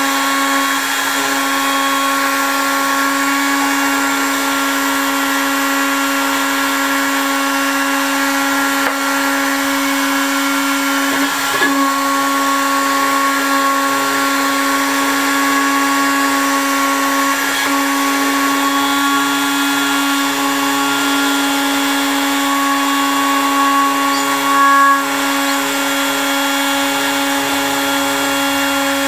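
A 1600 W electric heat gun running steadily: a constant motor hum over the even rush of blown air.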